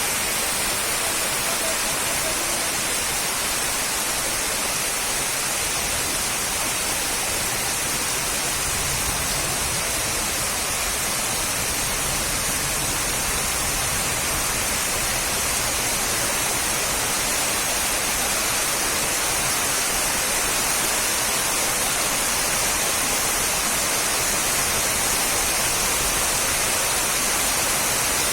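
Heavy rain falling steadily, a dense even hiss with no single drops or thunder standing out.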